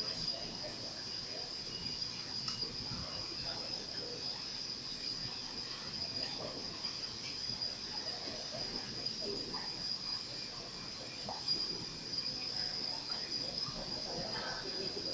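Indoor pool-hall background: a steady high-pitched whine runs unbroken under a faint, indistinct murmur of people in the hall.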